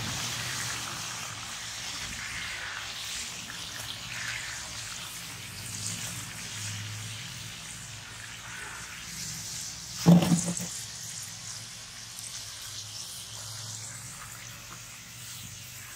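Chicken fingers deep-frying in hot oil in a large iron kadai: a steady bubbling sizzle, with one brief louder sound about ten seconds in.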